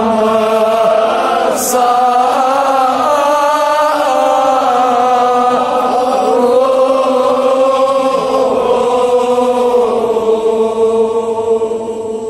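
Male voices chanting a Kashmiri marsiya (mourning elegy) in long, drawn-out melodic lines. Over the last few seconds one note is held steadily, then fades.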